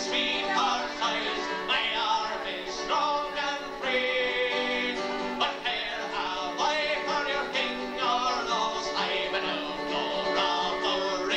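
Live Irish folk song: a male voice singing over strummed acoustic guitar and another stringed instrument, with a bodhrán frame drum keeping the beat.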